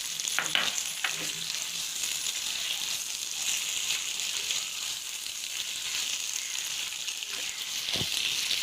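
Chicken and freshly added curry leaves sizzling in a cast-iron skillet, with a steady frying hiss. A spoon stirs and knocks against the pan a few times in the first second and once more near the end.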